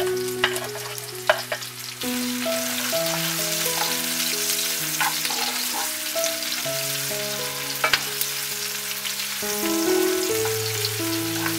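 Sliced onion dropping into hot oil in a frying pan and sizzling steadily from about two seconds in, stirred with a wooden spatula, with a few sharp knocks. Background music with a slow melody plays underneath.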